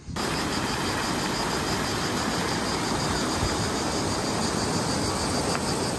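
Swimming-pool water jets and wall spouts splashing steadily into the pool: a constant, even rushing of water.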